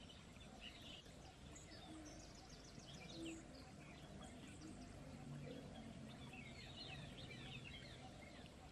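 Faint wild birdsong: many small birds chirping and trilling in short, overlapping calls, over a steady low background hush.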